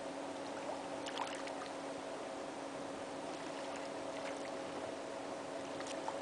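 An even hiss of river water around a kayak, with a faint steady hum underneath and a few light clicks about a second in and near the end.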